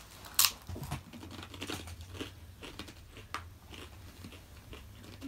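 Biting into and chewing a soft, moist rice cracker (shittori senbei): one sharp bite about half a second in, then faint, scattered chewing sounds.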